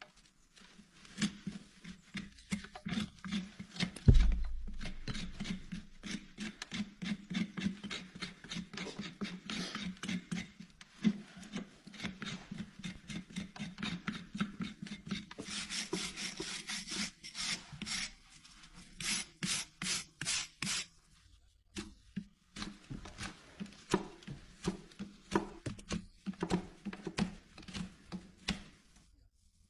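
Farrier's rasp being worked across a horse's hoof in a long run of scraping strokes, with a couple of short pauses. There is a single heavy low thump about four seconds in.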